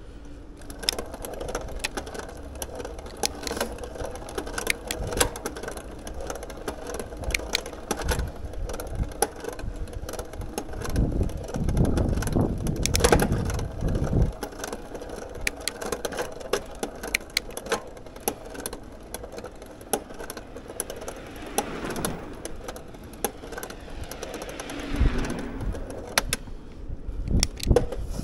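Bicycle being ridden, heard from a handlebar-mounted camera: a steady low hum of the ride with frequent small clicks and rattles from the bike over the road surface. A louder rush of low noise rises near the middle for about three seconds, with a shorter one near the end.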